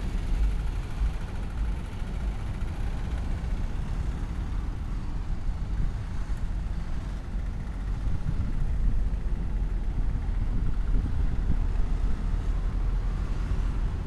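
Road traffic passing: cars and trucks making a steady low rumble with slight swells.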